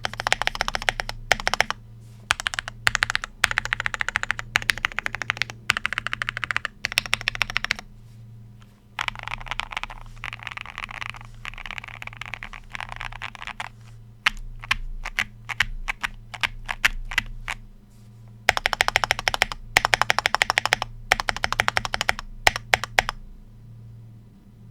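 Typing on a QK75 mechanical keyboard with lubed ThicThock linear switches, an FR4 plate and PBT keycaps. The typing comes in fast bursts of keystrokes with short pauses. In the middle the strokes run together into a continuous clatter, then come slower, separate presses, and the typing stops near the end.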